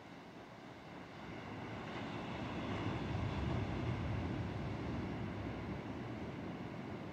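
Ocean surf: a wave breaking and rushing up the beach, swelling about two seconds in and slowly fading away.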